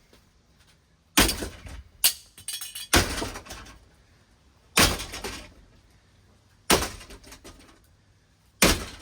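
A ceiling fan being struck hard six times, one to two seconds apart, each blow briefly ringing on as it dies away: the fan is being beaten to knock it off its mount.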